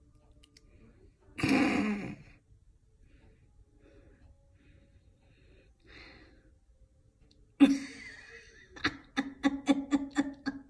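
Long-haired ginger domestic cat meowing loudly once, about a second and a half in. Near the end, a quick run of short repeated sounds, about four a second.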